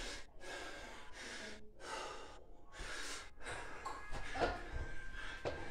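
A man breathing hard and fast from heavy exertion: a run of loud, ragged breaths in and out with short gaps between them. A few soft thuds of movement come in the second half.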